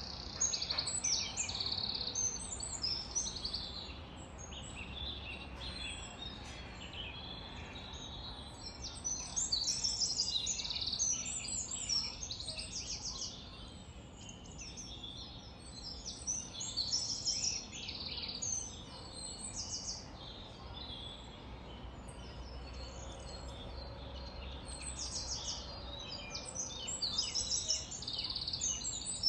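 Many small birds chirping and trilling together, a dense, continuous chorus of short high calls.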